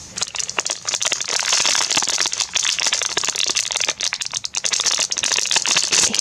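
Packaging crinkling and crackling as a blind box is unwrapped by hand, a dense run of small crackles that stops near the end.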